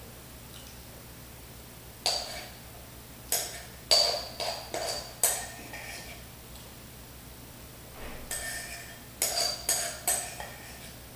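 Spoon clinking and scraping against a bowl as the last of a bowl of chili is scooped out. The short ringing clinks come in bunches: once about two seconds in, a run of five or six from about three to five seconds, and another run from about eight to ten seconds.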